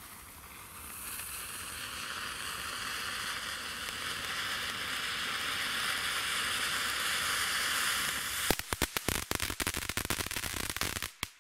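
Lesli 'Smooth Spark' firework fountain (Vulkan) spraying sparks with a steady hiss that builds from about a second in. About 8.5 s in it switches to its crackling finish, a dense run of sharp cracks, then cuts off suddenly just before the end.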